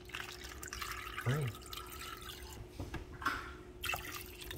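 Water poured from a pitcher into a glass bowl of raw chicken wings, splashing and trickling as the bowl fills for a baking soda soak. A short vocal sound about a second in.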